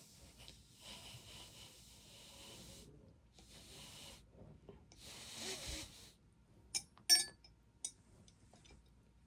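A Penberthy steam whistle blown by mouth in three long breaths, mostly a rush of air with only a faint whistle note. A few sharp metallic clinks follow as it is handled, the loudest just after the blowing.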